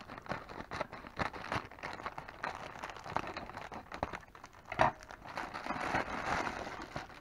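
Plastic mailer bag crinkling and rustling in the hands as the package is handled and turned over, with one sharper knock about five seconds in and a denser stretch of crinkling shortly after.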